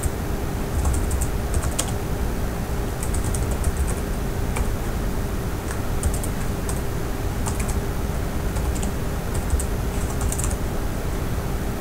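Typing on a computer keyboard: short bursts of keystrokes with pauses between them, over a steady low hum.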